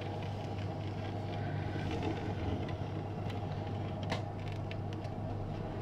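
A steady low hum of background room noise, with faint rustling and a couple of soft clicks from duct tape being smoothed by hand onto a picture frame.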